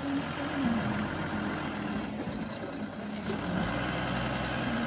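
Eicher tipper truck's diesel engine running at low revs as the truck creeps forward, with a steady low hum coming in during the second half.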